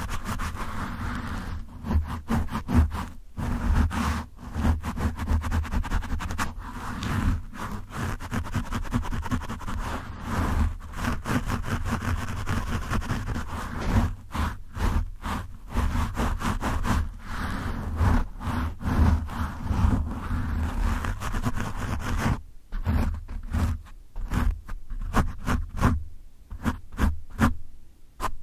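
Fingertips and nails scratching a foam microphone windscreen at close range: a dense, rough scratching with a deep low rumble from the handled mic. Near the end it breaks into shorter, choppier strokes with brief gaps.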